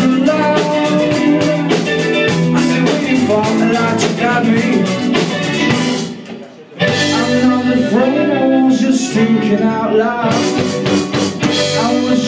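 A live rock band playing: electric guitars, bass guitar and drum kit, with a male lead vocal. Just past the halfway point the band stops for under a second, then comes back in together.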